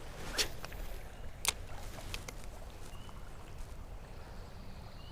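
Low steady rushing outdoor background at a trout stream, broken by a few sharp clicks in the first two and a half seconds, the loudest about a second and a half in. Faint short high chirps come near the middle and at the end.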